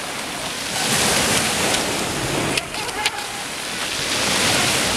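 Sea surf washing onto the shore, swelling and easing as waves come in, with two short clicks a little past halfway.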